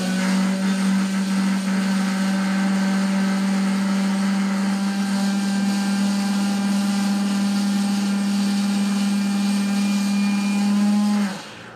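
Small electric motor of a rose engine's powered cutter running steadily at high speed while the spinning bit cuts a scalloped rosette pattern into the work. It is switched off near the end and the hum stops abruptly.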